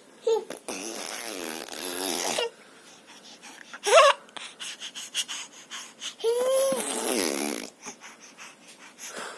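A person making silly vocal noises: two long hoarse, noisy voice sounds of about two seconds each, with a short rising squeak about four seconds in.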